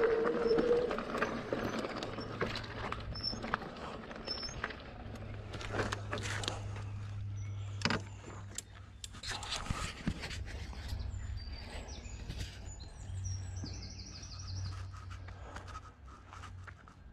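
Birds chirping and singing in woodland, with one trilling phrase late on, over the knocks and rattles of a fat-tyre e-mountain bike rolling along a rough trail.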